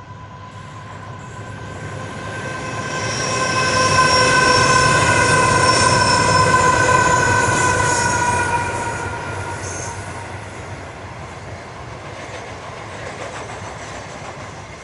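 Aurizon grain train, led by two diesel-electric locomotives, passing close by: it grows loud over the first four seconds and fades as the hopper wagons roll past. A steady squeal of several high tones runs through the loudest part and dies away about nine seconds in.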